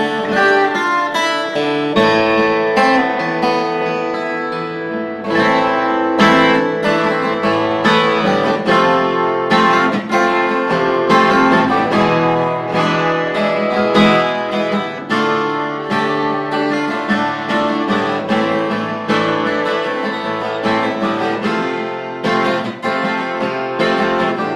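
Morris B-12-23 twelve-string acoustic guitar played with a flatpick, a steady run of strummed chords and picked notes that ring on into each other.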